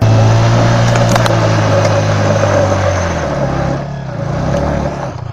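Yamaha R15's single-cylinder engine revving hard while the rear tyre spins in loose dirt, spraying grit. The revs hold high, dip about three seconds in, and pick up again near the end.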